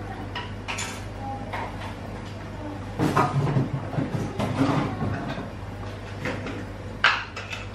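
Kitchen handling sounds: clicks and knocks of containers and utensils being moved, busier in the middle, with one sharp knock near the end, over a steady low hum.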